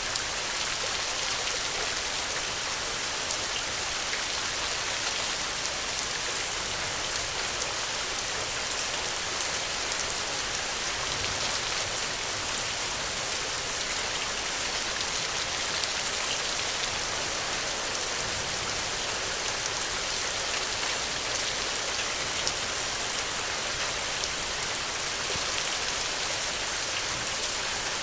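Steady rain falling, a constant hiss with scattered individual drops ticking on a surface.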